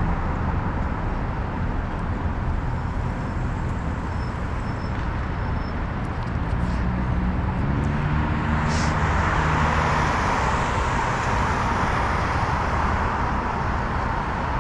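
Road traffic heard while riding: a motor vehicle passes, its engine note rising around the middle, with a swell of tyre noise, over a steady low rumble.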